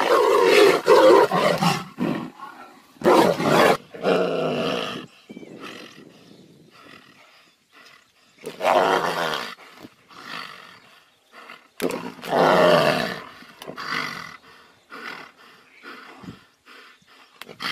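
Two tigers fighting, roaring and growling in repeated loud bursts. The longest and loudest roar comes in the first two seconds, then shorter roars every few seconds, with quieter growls between.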